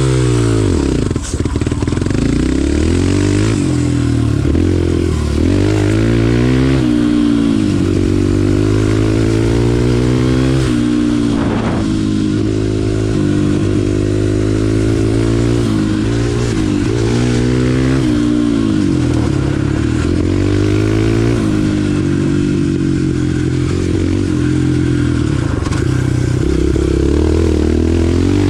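Kawasaki KLX 140R F dirt bike's air-cooled single-cylinder four-stroke engine running hard on a trail ride. Its pitch climbs and drops again and again as the throttle is opened and closed.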